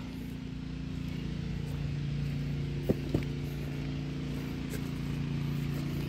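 Steady engine hum of a water pump running in the background, pumping out flooded ground. Two short clicks come about halfway through.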